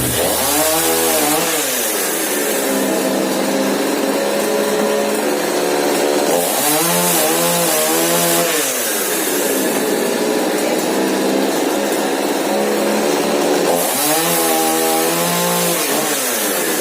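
Two-stroke Husqvarna chainsaw revving up and cutting through old wooden window frames three times. Its pitch climbs and sags with each cut, and it drops back to a steadier, lower run in between.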